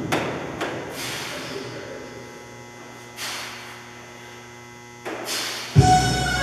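Steady low electrical hum, broken by a few short hissing noises. Background music fades out at the start and comes back in near the end.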